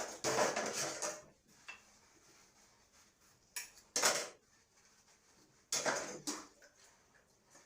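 Dishes and cutlery clattering in separate bursts: a longer stretch at the start, a sharp clatter about four seconds in, and another about six seconds in.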